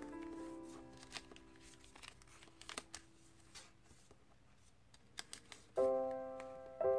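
Background music of keyboard-like notes fading away, then a quieter stretch of a sheet of paper being creased and pressed by hand in a few short crinkles and taps. The music comes back in loudly near the end.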